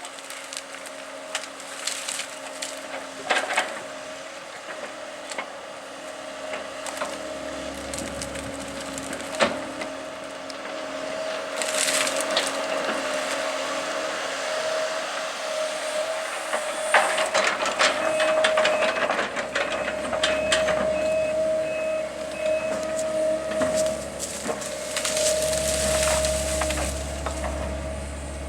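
Tree wood cracking and splintering as it is broken up by heavy machinery, with sharp snaps over a steady machine drone. A run of short beeps comes about two-thirds through, and a low rumble builds near the end.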